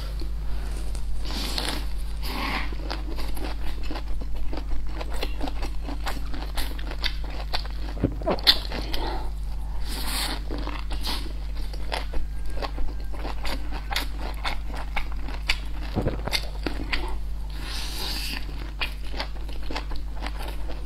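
Close-miked eating: biting into and chewing a soft flatbread wrap filled with stir-fried vegetables. The chewing is wet and irregular, with many small crunches and clicks, over a steady low electrical hum.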